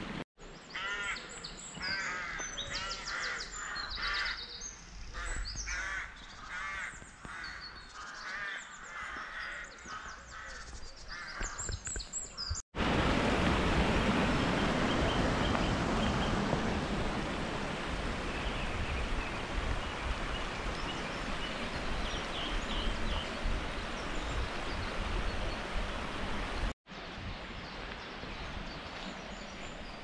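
Woodland birds calling, many short repeated calls. After a cut a little before halfway, a shallow stream babbles steadily over stones, louder than the birds. A second cut near the end leaves a quieter steady rush of water.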